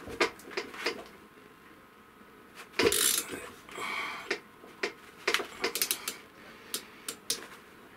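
Socket ratchet clicking as it turns the forcing bolt of a three-jaw hub puller, drawing the hub off the tapered spindle of a marine diesel's raw-water pump. There is one sharp metallic knock about three seconds in, and a quick run of ratchet clicks later on.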